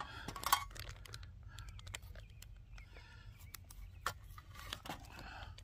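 Scattered small clicks and crinkling rustles of hands peeling the casing off a deer salami over a plastic bag.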